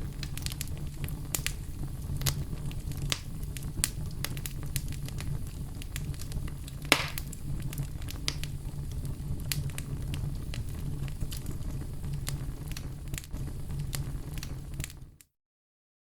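Fire crackling: a steady low rumble with many sharp, irregular pops, one louder pop about halfway through. The sound cuts off suddenly near the end.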